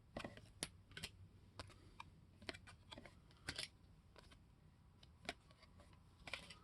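Faint, irregular clicks and light rustles of trading cards and their packaging being handled.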